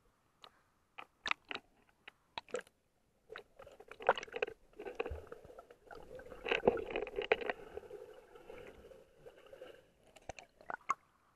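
River water splashing and slapping against a camera held at the surface, then a muffled, churning gurgle for several seconds while the camera is underwater, and more sharp splashes near the end as it breaks the surface.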